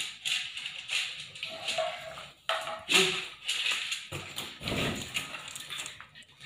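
Domestic cat meowing several times in short calls, begging to be fed.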